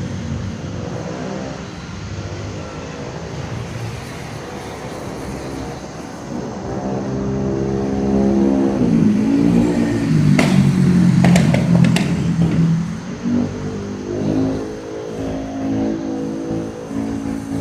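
Motor vehicle engine running and revving, swelling to its loudest about ten seconds in, with a few sharp clicks at the loudest point before it eases off.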